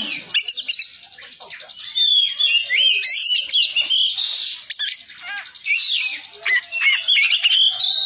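Oriental magpie-robin singing a varied song of whistled, gliding notes broken by harsh, scratchy phrases, with a quieter stretch about a second in.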